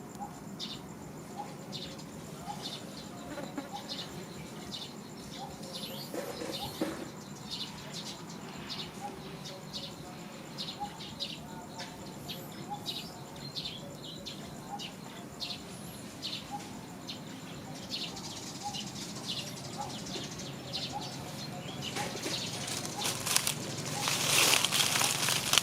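Outdoor wildlife ambience: short high-pitched chirps repeating about once or twice a second over a steady background, with a louder rustling noise near the end.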